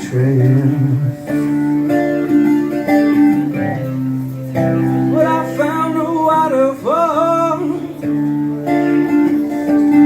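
Guitar playing a song's accompaniment, with chords held and changed every second or two, and a wavering melodic line that rises and falls around the middle.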